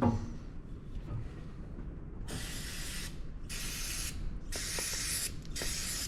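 Aerosol spray can hissing in four short bursts about a second apart, washing metal debris out of a diesel fuel injection pump's solenoid cavity.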